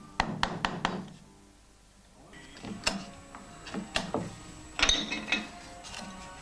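Hand-pushed carving chisel cutting into a wooden board, giving short, sharp clicks and knocks as the blade bites: a quick run of about five in the first second, then scattered ones, with another close run about five seconds in.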